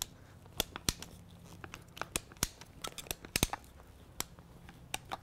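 Hand PVC pipe cutter working through schedule 40 PVC pipe, making a run of sharp, irregular clicks and cracks as the blade bites in.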